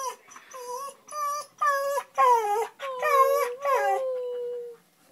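Siberian husky whining and howling in a run of short, wavering cries that bend up and down in pitch. The run ends in one long drawn-out howl that trails off near the end.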